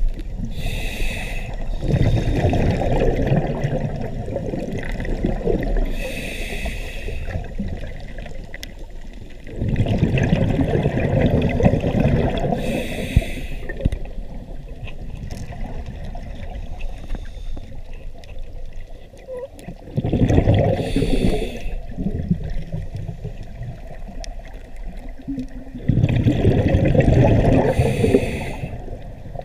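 A scuba diver breathing through a regulator underwater: short hissing inhales about every six to eight seconds, each followed by a long rush of exhaled bubbles.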